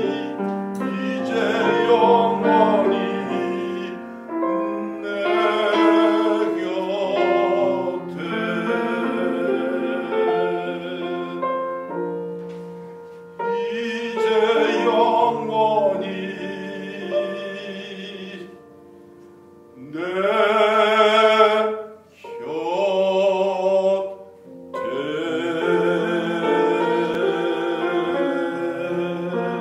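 A man singing a Korean art song in a trained classical style with vibrato, accompanied by grand piano. The voice rests for about two seconds some eighteen seconds in, leaving the piano playing softly, then comes back in.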